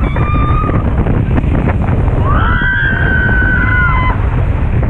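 Speedboat running at speed over choppy water, with wind buffeting the microphone and water rushing against the hull. A person gives a short high yell at the start and a longer, held high yell of about two seconds in the middle.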